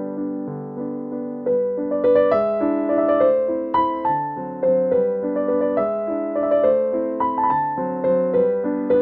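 Background piano music: a gentle tune of struck notes over chords, busier and higher about two seconds in.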